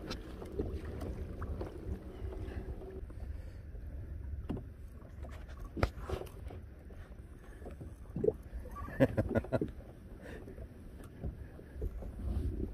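Wind buffeting the microphone and sea chop around a kayak, with a faint steady hum in the first few seconds and a few scattered knocks and taps, clustered a little past the middle.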